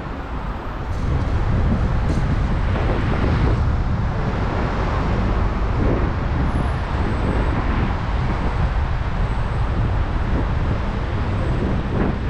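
City street traffic noise with a heavy low rumble, stepping up in loudness about a second in and then holding steady.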